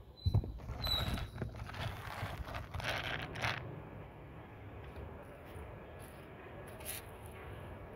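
A cat crunching dry kibble close by, with irregular crunches and scrapes for the first three or four seconds. The chewing then stops, leaving a steady low background hum.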